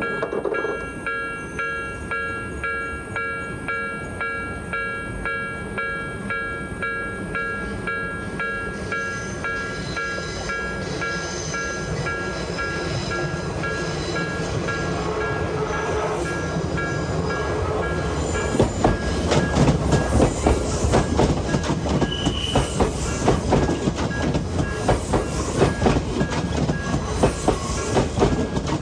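Japanese level-crossing warning bell ringing in a steady rhythm of about two strikes a second, while a train draws near. From about two-thirds of the way through, the train passes close by with a clickety-clack of its wheels over the rail joints, louder than the bell.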